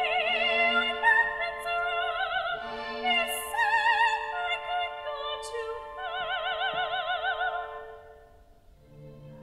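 Operatic singing with wide vibrato over a sustained accompaniment note, the phrases dying away near the end.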